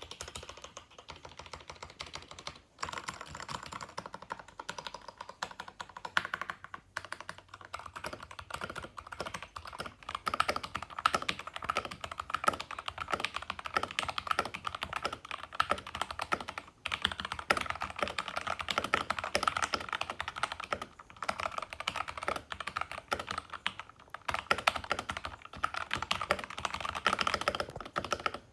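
Computer keyboard being typed on fast and continuously, a dense stream of key clicks with short pauses about three seconds in and again around seventeen seconds.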